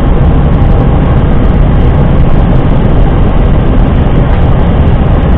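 Steady loud rushing noise with a deep rumble on the flight deck of an Airbus A320 on final approach: airflow and engine noise.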